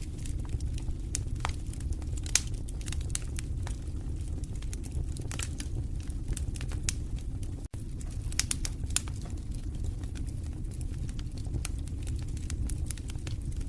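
Fireplace fire crackling: irregular sharp pops and snaps over a steady low rumble of the flames. The sound cuts out for an instant about halfway through.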